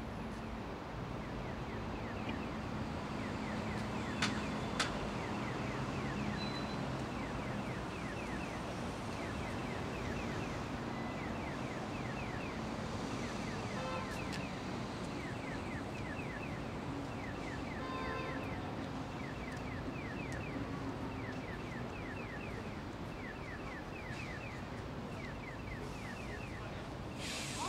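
Steady hum of city traffic from a busy multi-lane road with buses and cars. A fast, evenly repeated high chirping runs through most of it, and a couple of sharp clicks come about four seconds in.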